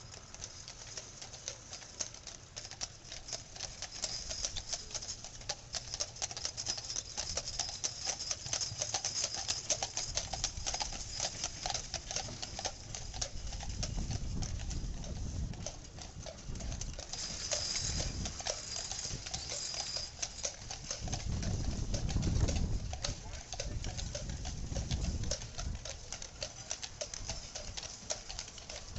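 Team of Percheron draft horses clip-clopping on pavement as they pull a horse-drawn steam fire engine, a steady patter of hoof clicks throughout. Two stretches of low rumble, about a third of the way in and again past the middle, as the wheeled engine rolls close by.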